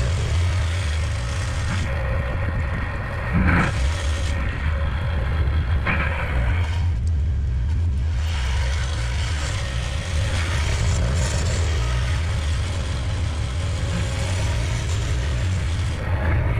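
John Deere 318 garden tractor's air-cooled two-cylinder engine running steadily under load while pushing deep snow with a front blade, the tires struggling for traction. A short thump about three and a half seconds in.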